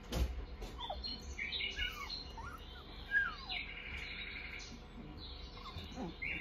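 Young Australian Shepherd puppies squeaking and whimpering: many short, high, falling squeaks and a few buzzy squeals, the sharpest about three seconds in. A brief bump comes right at the start.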